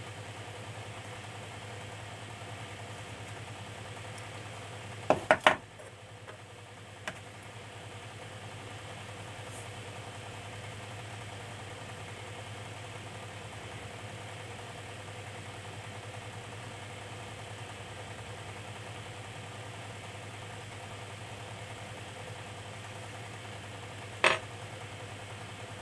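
Steady low machine hum with hiss in the background. A few sharp clicks cut through it: a quick double click about five seconds in, a faint tick shortly after, and a single click near the end.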